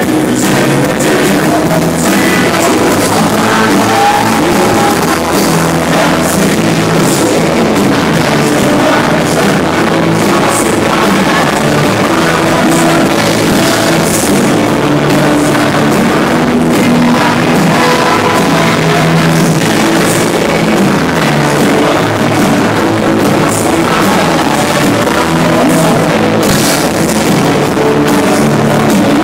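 A rock band playing live, with electric guitar and drum kit, loud and continuous.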